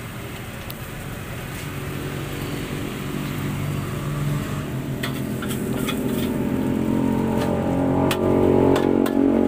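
A metal spatula clanks and scrapes against a steel wok as fried rice is stirred, with sharp strikes from about halfway through that come more often near the end. Under it a steady low hum grows louder.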